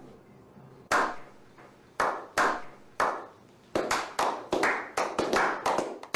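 A slow hand clap that speeds up. Single sharp claps, each with a ringing tail, come about a second apart at first and then faster and faster.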